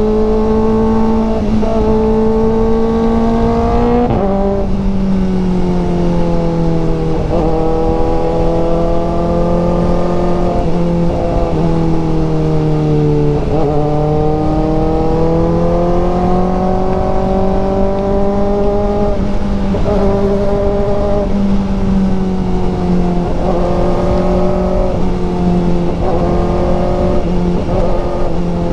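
Kawasaki ZX-4RR's 399 cc inline-four engine running under way at a fairly steady pace, its pitch easing down and stepping up again several times as the throttle and gears change, over wind noise.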